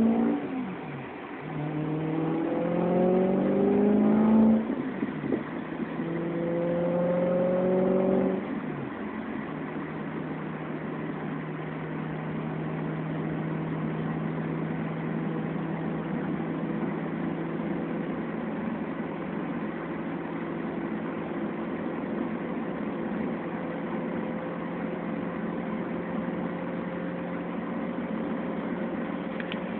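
BMW E90 M3's V8 engine and exhaust, through Riss Racing mufflers and RPI off-road pipes, accelerating in the first few seconds with upshifts about one and four and a half seconds in. It pulls again until about eight seconds, then eases off to a steady cruising note for the rest.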